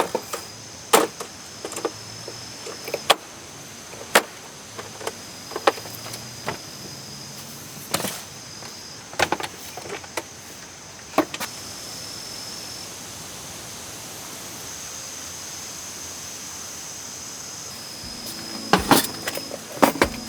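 Repeated sharp knocks of a tool striking wood, about one a second, pausing for several seconds past the middle and then coming in a quick cluster near the end, over a faint steady high tone.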